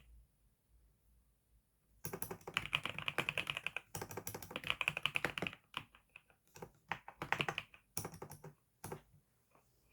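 Newly bought computer keyboard being typed on: fast runs of keystrokes starting about two seconds in, broken by short pauses, with a few final bursts near the end.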